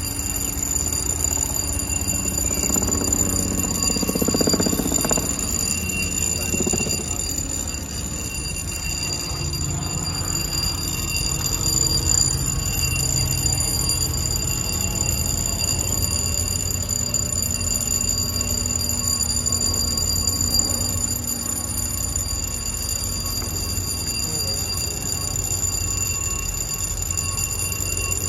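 A steady, high-pitched electronic warning alarm sounds without a break over a low rumble. It fits the lock's pedestrian-gate warning signal, which sounds while the walkway gate is closed for the lock.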